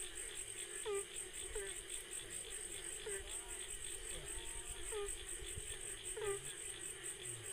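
Night chorus of crickets and other insects, a steady high trilling, with short low calls repeating irregularly about once a second.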